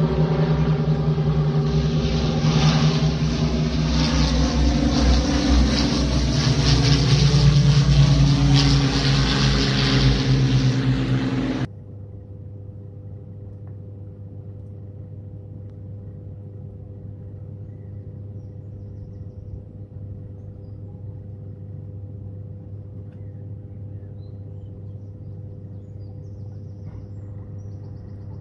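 A motor vehicle engine running loudly with its pitch shifting, then cutting off suddenly about twelve seconds in, leaving a faint steady hum.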